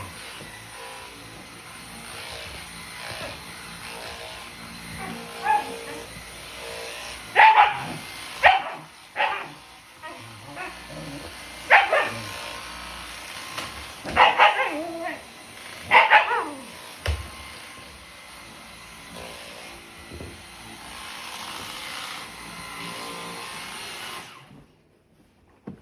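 A Shiba Inu–Siberian Husky mix dog barking in scattered short bursts, about eight in all, at a running Dyson vacuum cleaner. The vacuum's steady whir runs under the barks and cuts off suddenly near the end.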